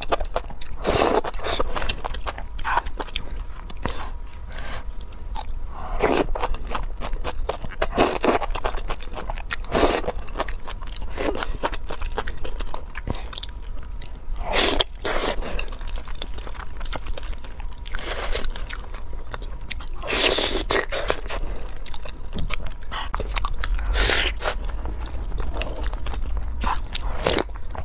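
Close-miked eating: noodles slurped from spicy malatang, then biting and chewing a braised spicy pork trotter, in short irregular mouth-noise bursts every second or two.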